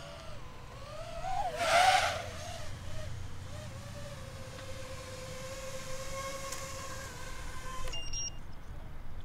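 6-inch FPV freestyle quadcopter flying past, its propeller whine rising and falling in pitch with throttle, loudest with a rush of air as it passes close about two seconds in. It then holds a steady pitch until it stops abruptly about eight seconds in, followed by a brief high beep.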